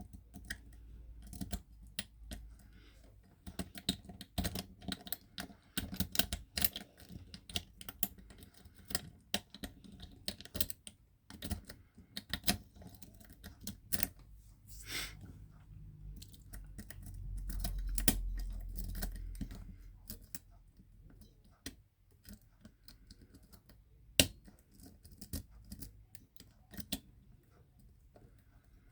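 Light, irregular clicking and scraping of a lock pick and tension tool working the pins of a pin-tumbler rim cylinder lock, with a brief low rumble a little past the middle.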